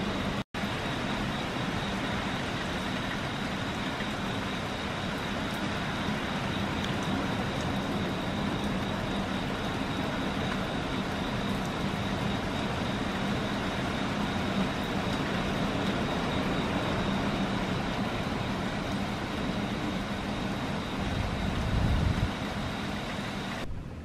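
Typhoon wind and rain blowing hard and steadily outside a window screen, with a stronger gust about 21 seconds in. Just before the end it drops to a quieter, muffled wind heard from inside the room.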